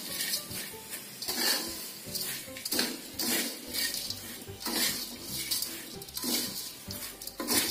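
Metal spatula scraping and clanking against a steel wok in repeated, uneven strokes as shredded fried potato is tossed quickly with chili paste.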